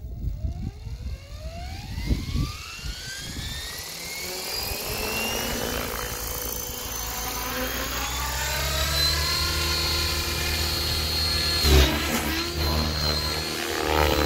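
Electric OXY 5 RC helicopter spooling up: the motor whine and rotor hum rise steeply in pitch over the first several seconds, then hold steady at flying head speed as it lifts off. A brief thump about twelve seconds in.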